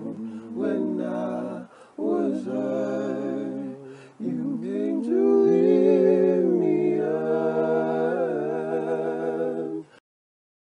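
Multi-tracked a cappella male vocal harmony, one singer layered in four parts, singing short phrases and then a long held chord that shifts once. It cuts off suddenly about ten seconds in.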